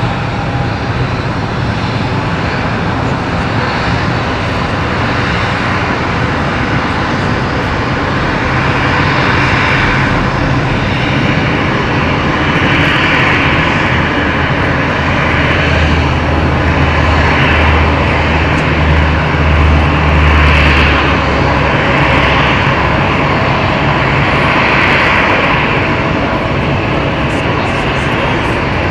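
Jet airliner's engines running loud and steady, with a deep rumble that builds from about halfway through, is strongest around two-thirds in, then eases.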